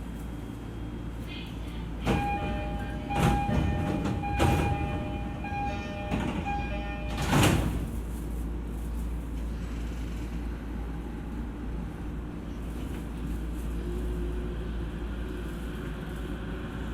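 E231-series commuter train at a station stop: the door-closing chime repeats for about five seconds among several knocks, and the doors shut with a loud thud about seven seconds in. The train then starts away, its motor tones rising near the end.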